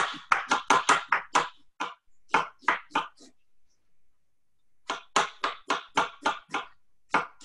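Chef's knife slicing through an onion onto a cutting board. The strokes come in quick runs, about six a second, with a break of over a second in the middle.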